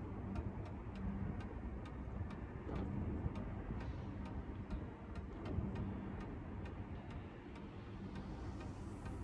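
Steady regular ticking, about three ticks a second, over a low background hum.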